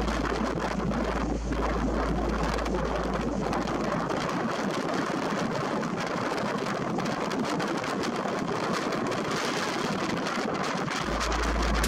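Steady rush of wind and water washing along the hull of a sailing ship under way, with wind buffeting the microphone.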